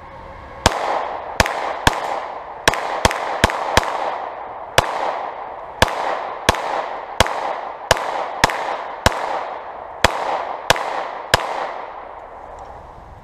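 Glock 17 pistol firing a full magazine of Tula steel-cased 9 mm ammunition: about seventeen sharp shots, half a second to a second apart, each with a trailing echo. Every round feeds and fires without a stoppage.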